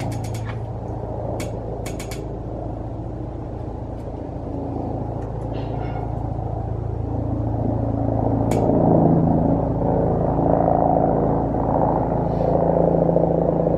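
Helicopter coming in to land, a steady rotor and engine hum with a low rumble. It grows louder and shifts in pitch about eight seconds in.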